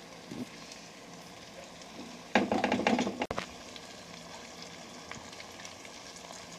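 Sausage, ham and carrot filling with ketchup sizzling steadily in an aluminium pot. A louder burst of noise, lasting about a second, comes about two seconds in and cuts off abruptly.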